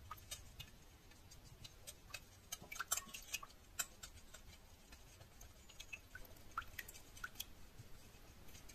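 Faint, irregular light clicks and taps of a stirring utensil against a stainless-steel bowl of melted vegetable wax, with a cluster of louder clicks about three seconds in.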